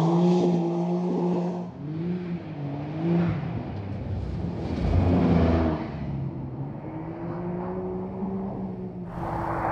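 Porsche 911 Dakar's 3.0-litre twin-turbo flat-six revving up and down as the car slides on snow and ice, its pitch rising and falling repeatedly. A louder rush of noise swells about five seconds in, and near the end the engine sinks under a broader hiss.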